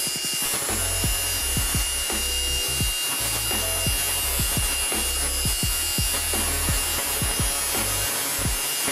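Angle grinder running with a steady high whine as its abrasive disc grinds down the top of a metal vise jaw. Background music with a bass beat plays underneath.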